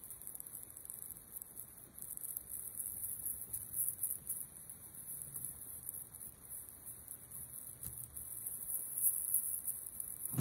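Steady high hiss, with the faint rubbing and patting of a hand working a dry spice rub into a raw beef roast.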